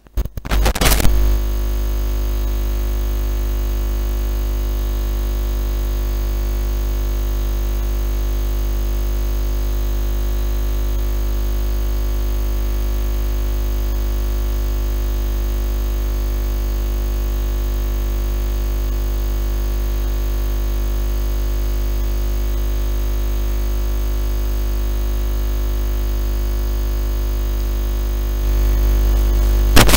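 A loud, unchanging electronic drone of many held tones over a deep hum. It starts abruptly with a few sharp peaks, grows slightly louder near the end and cuts off suddenly.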